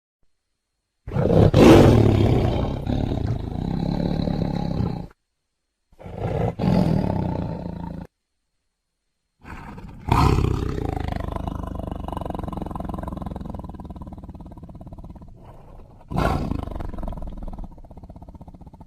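Tiger roaring, four separate roars: one starting about a second in and cut off near five seconds, a shorter one around six to eight seconds, a long one from about ten seconds that fades slowly, and another near the end. The roars are separated by dead silence.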